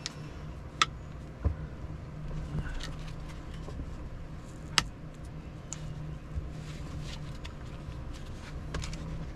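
Light-kit mounting clips and spacer strips being handled, making about six scattered sharp clicks and taps over a steady low hum.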